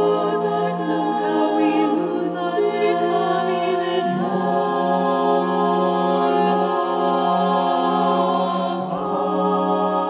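Mixed-voice choir singing a cappella in sustained, held chords. The harmony shifts about four seconds in and again near nine seconds, with sung s-sounds hissing in the first few seconds.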